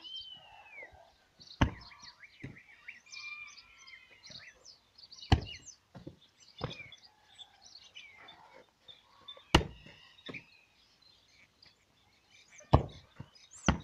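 A football being kicked during keepy-uppy: about seven sharp thuds, irregularly spaced a second to a few seconds apart. Birds chirp throughout.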